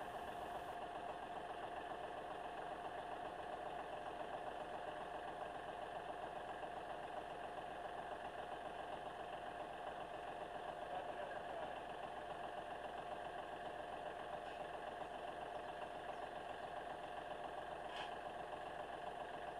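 John Deere 5065E tractor's diesel engine idling steadily.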